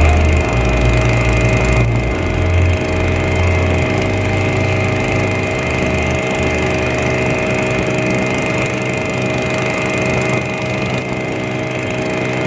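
Small ketinting longtail boat engine running at a steady speed. A low background music bass line fades out in the first five seconds or so.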